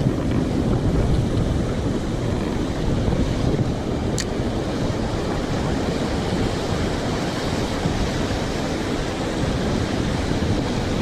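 Ocean surf rushing steadily on the beach, with wind buffeting the microphone.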